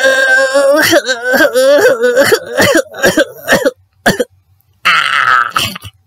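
A person's voice making comic nonsense noises: a held, wavering cry, then a run of short broken yelps, and a harsh, hoarse throaty burst near the end.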